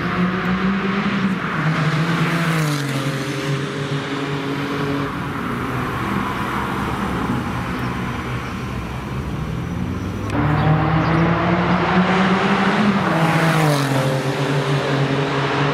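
Porsche 997 GT2 RS's twin-turbocharged 3.6-litre flat-six, through a Techart exhaust, driving past at speed twice. Its engine note falls in pitch as the car goes by, about two and a half seconds in and again near the end, with an abrupt jump in loudness about ten seconds in.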